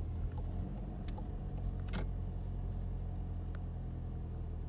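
Car running slowly, heard from inside the cabin: a steady low engine and road hum with a few faint clicks.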